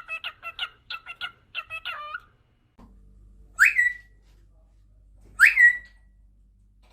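Pet parrot whistling: first a quick run of short whistled notes, then, after a brief pause, two loud whistles about two seconds apart, each sweeping upward and settling on a held note.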